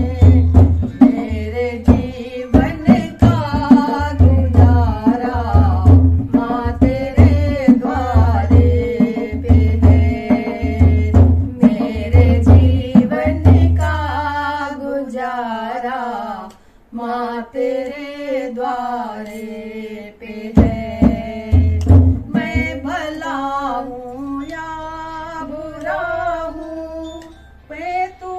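Women singing a Hindi devi kirtan to a steady dholak beat. About halfway through the drum stops and the singing carries on unaccompanied, with the drum returning briefly a few seconds later.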